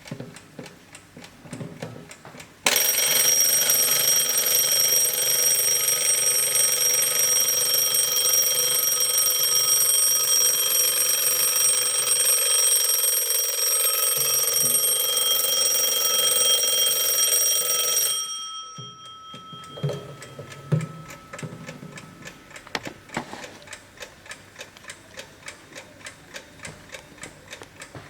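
Antique German brass carriage alarm clock ringing its alarm bell: a loud, steady ring lasting about fifteen seconds that cuts off suddenly. The clock ticks evenly before and after the ring, with a few low knocks just after it stops.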